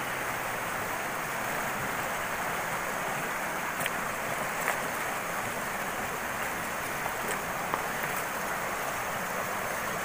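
Shallow, fast-flowing mountain river rushing over rocks and boulders: a steady hiss of running water, with a few faint clicks in the middle.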